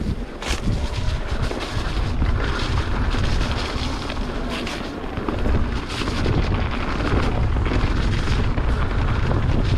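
Mountain bike running down a rough dirt trail, with wind buffeting the camera microphone as a heavy rumble and sharp knocks and rattles from the bike hitting bumps several times.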